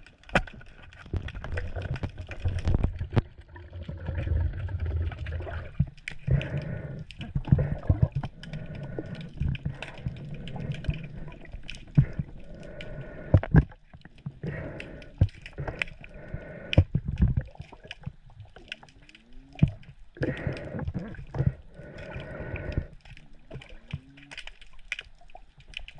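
Sea water sloshing and gurgling, with irregular sharp knocks and clicks scattered throughout.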